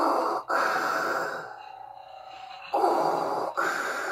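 Heavy Darth Vader-style breathing, two slow rasping in-and-out breath cycles, each a pair of hissing swells.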